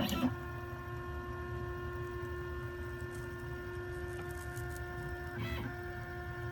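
OX CNC router's stepper motors whining steadily as the gantry drives a Sharpie pen across the board, drawing a line. A short burst of noise comes right at the start and another about five and a half seconds in, as the tone shifts.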